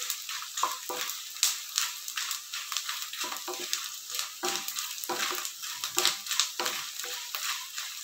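Edible gum (gond) frying in hot desi ghee in a stainless steel kadai: a steady sizzle full of irregular crackles and pops as the pieces puff up, with a wooden spatula stirring through the pan.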